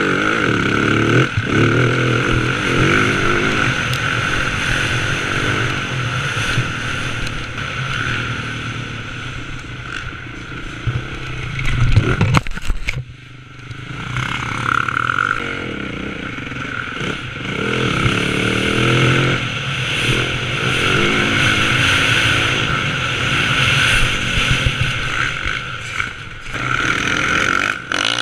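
Motocross dirt bike engine revving up and dropping back again and again as the bike is ridden hard around the track, heard from the rider's helmet camera. About twelve seconds in there is a short loud burst, then the engine sound drops away for about a second before it picks back up.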